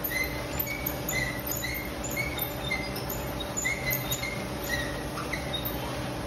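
Paper-and-foil roll converting machine running with a steady hum and rumble, and short, high squeaks repeating irregularly about twice a second.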